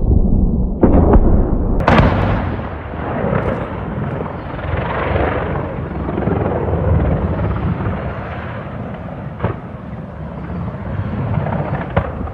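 Bangs of explosions over a heavy, constant rumble: two sharp blasts about one and two seconds in, and two more, lighter cracks later on.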